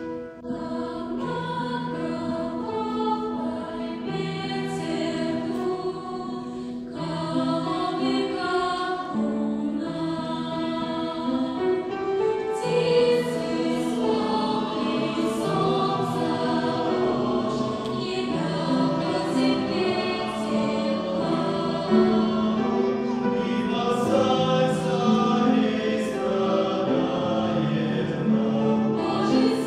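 A church choir singing a hymn in slow, held chords.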